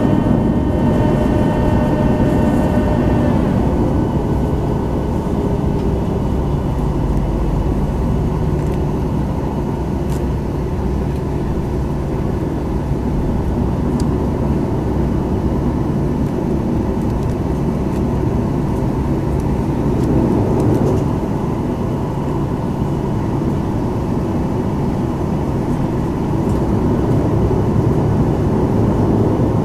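Cabin noise inside a Boeing 737-900ER moving on the ground: a steady low rumble of the CFM56 jet engines running and the airframe rolling. A set of high whining tones fades out about three seconds in.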